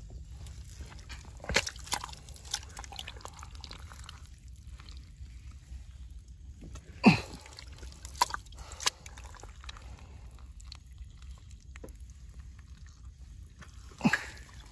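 Wet mud squelching and sucking as an arm works into a flooded crab burrow. There are three loud slurping squelches, each dropping in pitch, about one and a half seconds in, about seven seconds in and near the end, with small wet clicks and drips between.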